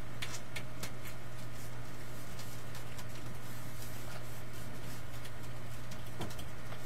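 Steady low electrical hum with scattered faint clicks and taps as the LED strips are handled and pressed onto the wall.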